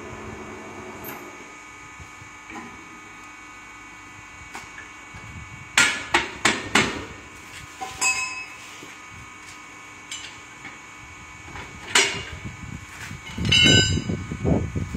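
Sharp metallic strikes of a tool on a truck wheel being worked on a tyre changer: a quick run of four blows about six seconds in, one more two seconds later, a single blow near twelve seconds and a flurry near the end, some with a short metallic ring, over a faint steady hum.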